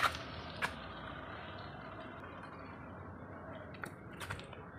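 Faint steady street noise of traffic, with a few light clicks.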